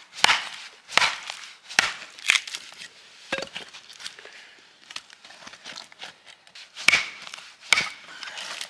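Crunching footsteps in snow: four steps in quick succession, a few seconds of faint rustling, then two more steps near the end.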